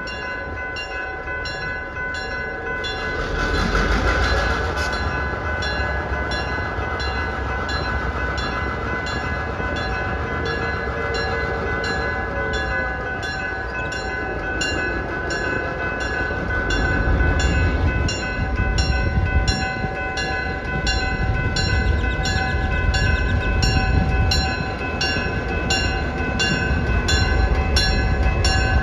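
Railroad crossing bell ringing steadily about twice a second, over the low rumble of a diesel locomotive running past at walking pace. The rumble grows louder in the second half. A louder rush of noise comes about four seconds in.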